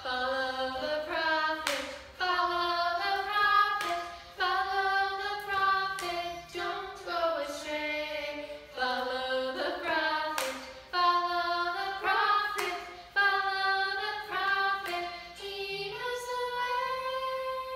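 A woman and children singing a children's song together in unison, in phrases of held notes.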